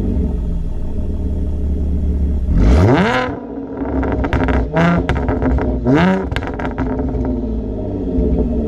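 Audi S4 with straight test pipes, an X-pipe and an AWE touring exhaust idling, then blipped three times: one longer rev about two and a half seconds in and two shorter blips near five and six seconds. Between and after the revs the exhaust fires a rapid string of pops and crackles on the overrun, from a pops-and-crackles tune, before it settles back to idle.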